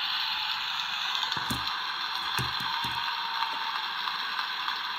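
A steady, even hiss, with a few faint soft knocks as small plush toys are handled on a table.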